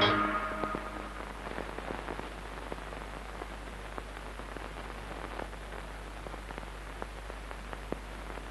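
Music fading out in the first second, then a steady hiss with scattered, irregular faint crackles and clicks.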